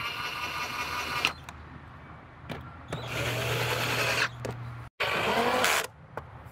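Cordless drill/driver driving the Phillips screws of an air-filter housing lid home, its motor whirring in several short runs with pauses between.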